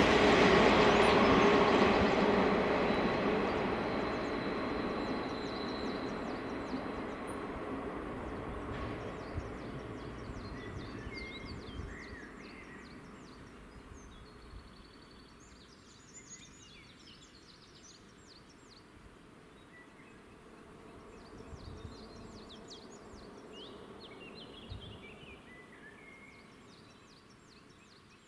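A passenger train moving away after passing over the crossing, its rail rumble fading steadily over the first dozen seconds. Then birds chirping and singing in short bursts.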